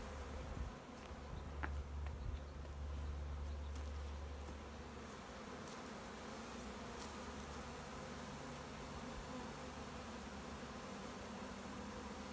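Honeybee swarm buzzing steadily as the bees cluster on and walk into a cardboard swarm box, with a low rumble under it for about the first five seconds.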